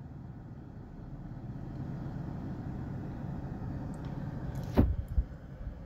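Steady low rumble of a car, swelling slightly and then easing, with one sharp knock about five seconds in.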